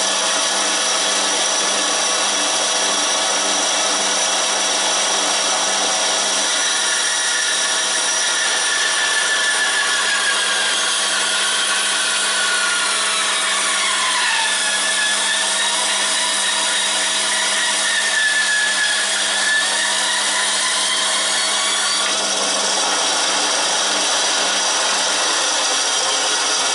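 EMCO BS-2 band saw running steadily and ripping an oak board fed along the fence. From about seven seconds in, the cut adds a wavering tone that dips and rises, and it fades out around twenty-two seconds as the board clears the blade.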